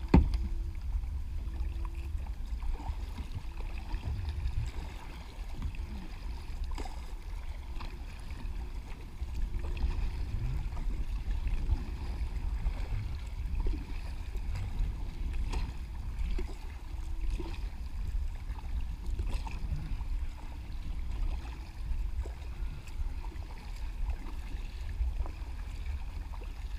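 Kayak paddles dipping and water swishing and lapping along plastic kayak hulls, picked up by a camera mounted on the kayak, over a steady low rumble.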